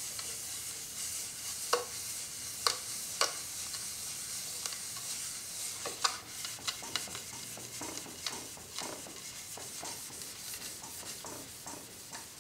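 Jointer knives held in a sharpening jig being rubbed across wet 20-micron 3M abrasive film on a granite slab: a steady gritty hiss with occasional sharp clicks.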